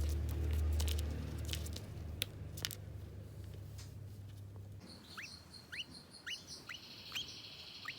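A low hum with scattered clicks for about the first two seconds. From about five seconds in, young lovebirds chirp in a run of short, sharply rising cheeps, about two a second, over a steady high-pitched hiss.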